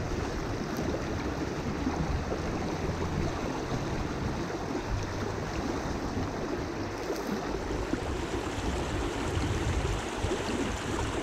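Shallow river riffle rushing over rocks: a steady, unbroken sound of flowing water.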